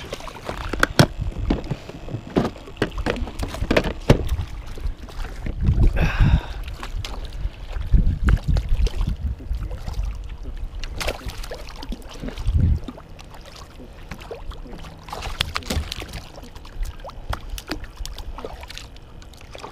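Hooked catfish splashing and thrashing at the surface beside a kayak. There are scattered sharp knocks and several louder splashy surges over a low rumble.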